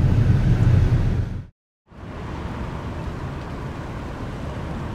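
A steady low rumble, like vehicle noise, cuts off abruptly about one and a half seconds in. After a brief silence, a quieter, even background noise takes over.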